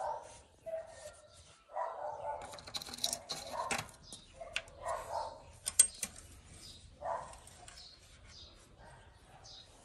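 A dog barking several times at irregular intervals, over light clicks and rustling as the engine's oil filler cap is refitted and the engine is wiped with a rag.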